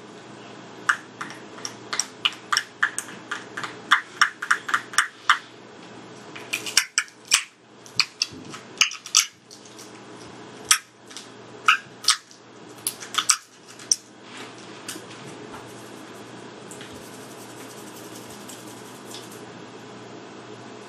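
Crisp fried pani puri shell crackling and snapping as fingers press and poke a hole into it: a quick run of sharp little cracks that stops about two-thirds of the way through.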